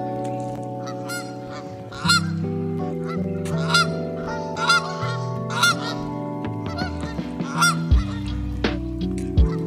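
Canada geese honking repeatedly, short calls a second or so apart, growing louder about two seconds in.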